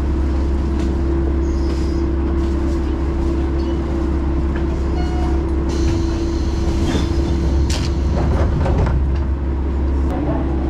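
Diesel railcar's engine running steadily while stopped at a station, heard from inside the carriage: a constant hum over a low rumble. A few short knocks and clatters come about six to eight seconds in.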